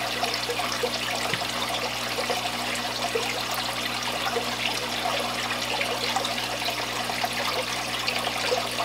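Water pouring and splashing steadily from a filter return hose into a koi tub, with a low steady hum underneath.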